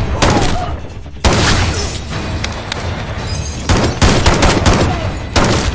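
Rapid gunfire from several guns, many shots in quick succession with ringing echoes. The heaviest bursts come about a second in and again around four seconds.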